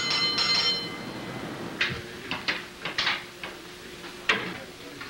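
A signal bell rings twice at the start, its tone ringing on for about a second, then the steel gate and fittings of a mine hoist cage clank and rattle in a series of sharp metallic knocks.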